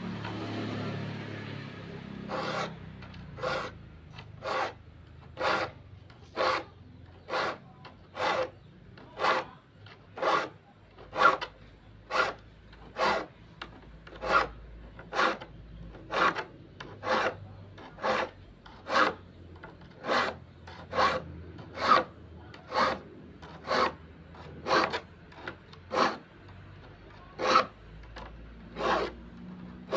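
Hand-held steel file rasping across the teeth of a hand saw, sharpening them: short, even strokes about once a second, starting about two seconds in.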